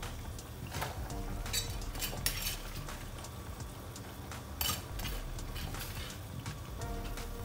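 A metal ladle stirring water spinach in an aluminium pot, knocking and clinking against the pot several times over a low steady rumble.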